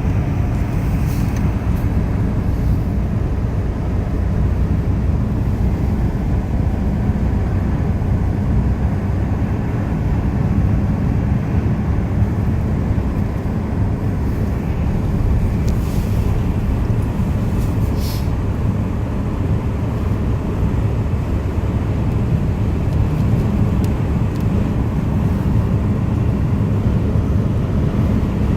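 Steady road and engine noise of a moving car, heard from inside the cabin, with two brief ticks a little past halfway.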